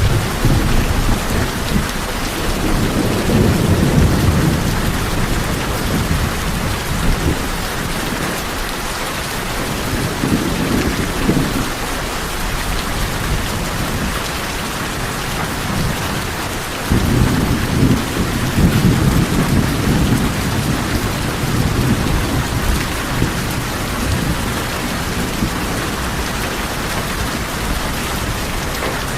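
Steady rain drumming on a tin roof, with rolls of low thunder rumbling in about a second in, again around ten seconds in, and for several seconds from about seventeen seconds.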